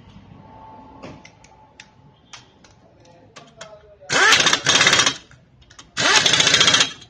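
Pneumatic impact wrench hammering on wheel lug nuts in three loud rattling bursts, the first spinning up with a rising whine, after a few light clicks of tools.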